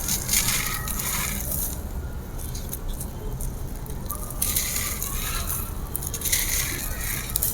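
Dry grey concrete slab crumbling: gritty crackling in bursts, one at the start and two more about four and a half and six seconds in, over a steady low hum.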